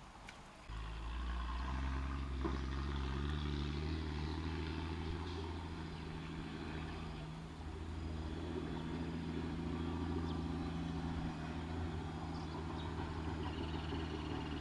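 An engine running at a steady idle, a low unchanging hum that comes in abruptly about a second in.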